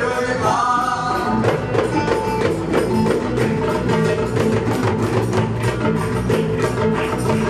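Live Gnawa-style fusion band: a frame drum beats a steady rhythm over electric bass and oud, after a sung phrase that ends just after the start.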